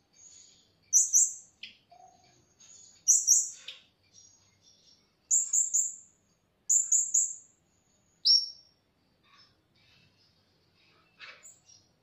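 Blue-crowned hanging parrots (serindit) calling: sharp, very high-pitched chirps in quick runs of two to four notes, repeated every second or two.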